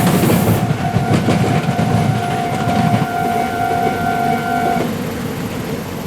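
Meitetsu electric train running over the level crossing, its rumble fading about three seconds in. Over it the crossing's warning bell rings with a steady repeating tone while the crossing is closed, stopping about five seconds in.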